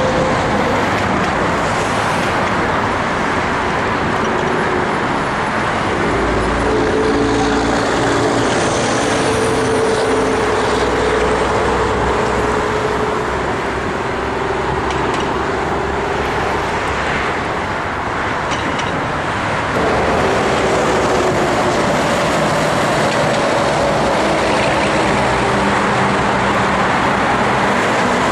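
Road traffic: a steady wash of tyre and engine noise from motor vehicles, with engine tones shifting as vehicles go by and a slight step up in level about twenty seconds in.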